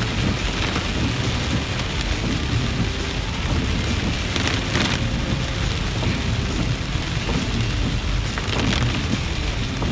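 Heavy rain drumming on a car's windshield and roof, heard from inside the moving car over a steady low road rumble.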